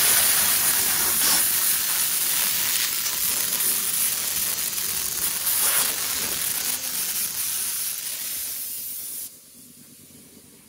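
Compressed-air blow gun hissing steadily as it blasts dust off hiking boots, stopping abruptly about nine seconds in.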